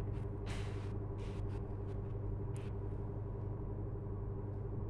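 A steady low mechanical hum with several even tones, and a few faint brief rustles of yarn being worked with a crochet hook.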